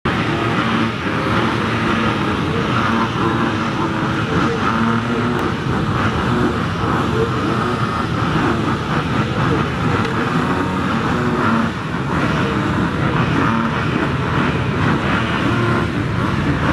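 A full gate of motocross bikes running together on the start line, many engines at once with their pitches shifting up and down as riders blip the throttles while waiting for the gate to drop.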